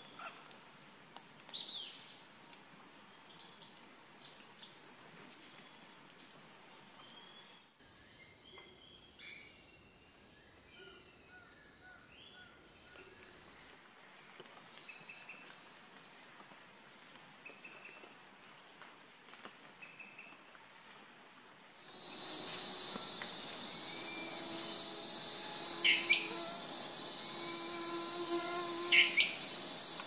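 Insects buzzing in one steady high-pitched drone. It drops away for a few seconds about a third of the way in, comes back, and is much louder for the last third.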